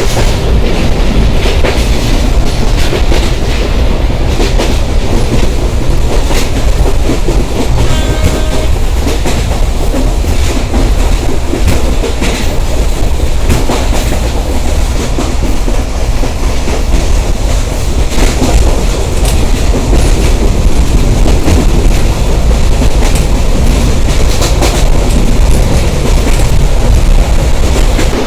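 Simanta Express passenger train running on the track: a loud, steady rumble of wheels on rails with frequent clicking over the rail joints, and a short pitched tone about eight seconds in.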